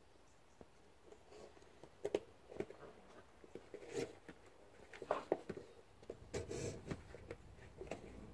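Springer spaniel puppies eating from plastic food bowls: irregular small clicks, scrapes and crunches, with a few louder clatters.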